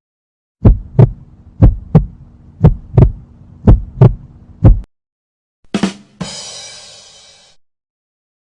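Heartbeat sound effect: paired lub-dub thumps, about one beat a second, five beats over a low steady hum. Near the end a different short effect follows: a brief hit, then a hissy, buzzy tone that fades away over about a second and a half.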